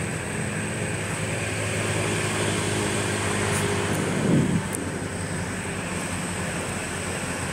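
Steady hum of a motor vehicle engine going by, its pitch dropping as it passes about four seconds in.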